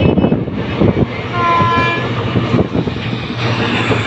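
Passenger train running at speed, heard from a carriage window: wheels knocking over rail joints with a steady rush of rolling noise. A short horn blast sounds about a second and a half in.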